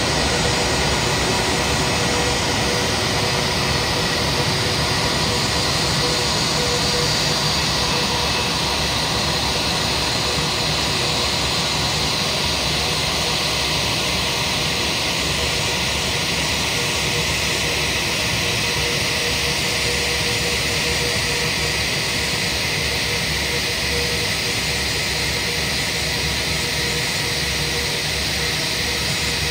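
Steady jet aircraft engine noise: a continuous rush with a steady whine that holds level throughout.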